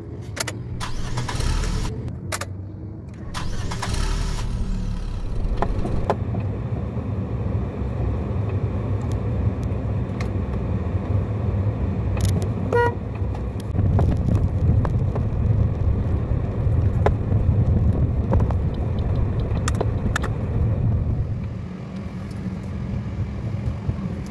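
Car started with the ignition key, with two short bursts of noise in the first few seconds, then the engine running and the car driving, heard as a steady low rumble inside the cabin. A short beep sounds about halfway through.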